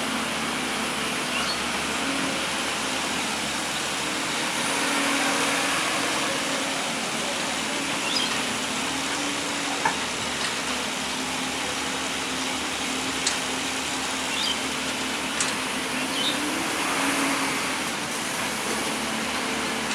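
Excavator's diesel engine running steadily under a constant hiss, with a few faint clicks and short chirps scattered through.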